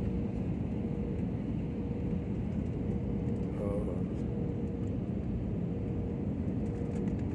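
Steady cabin noise inside a jet airliner on final approach: an even low rumble of engines and airflow, with a thin steady tone running through it.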